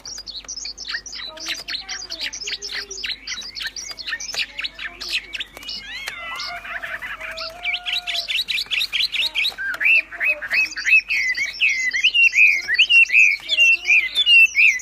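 A wambi songbird singing a fast, continuous song of rapid repeated chirps, trills and whistled glides, with a few lower whistles mixed in.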